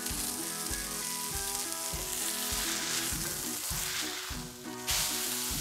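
Smash burger patty sizzling hard in a very hot cast iron skillet greased with beef tallow, searing for crust. Near the end the sizzle drops for a moment as a spatula scrapes the patty up and flips it, then comes back strongly.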